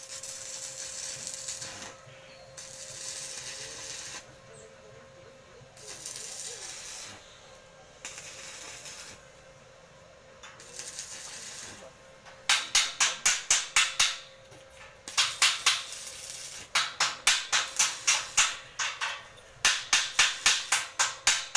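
Aerosol spray-paint can spraying in hissing bursts of one to two seconds, several times over. From about twelve seconds in, the can is shaken hard in runs, its mixing ball rattling at about five clicks a second.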